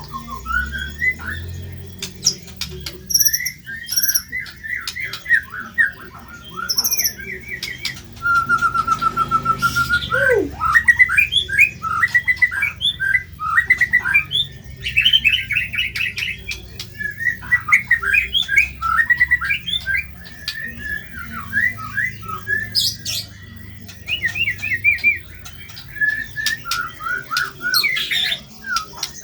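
White-rumped shama (murai batu) singing a fast, harsh, chattering song of squeaky, squawking notes in lovebird-style phrases. Around 8 seconds in there is a run of quick, evenly repeated notes, then a low downward swoop, before the chatter resumes.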